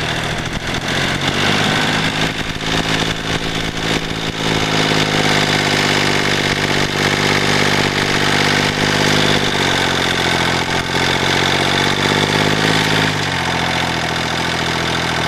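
Kubota diesel tractor engine running steadily while driving in second gear, its note dipping and recovering a few times.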